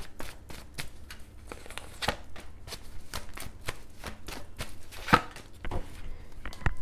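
A deck of tarot cards being shuffled by hand: a run of quick papery clicks, with one sharper snap about five seconds in.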